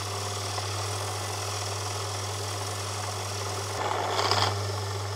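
Fellow Ode flat-burr coffee grinder's motor running on with the burrs nearly empty after the beans are ground, a steady hum that turns briefly louder and grittier about four seconds in. It keeps going because it still senses resistance from coffee retained in the burrs, and has not yet switched itself off.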